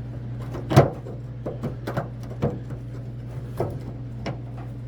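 Metal pick clicking and scraping against a rust-seized tailgate handle clip as it is pried at, with a string of short sharp clicks, the loudest about a second in. A steady low hum runs underneath.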